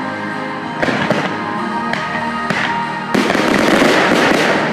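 Fireworks display: aerial shells going off with sharp bangs about a second in, then a dense crackling, hissing wash near the end as a volley of comets rises. Music plays throughout.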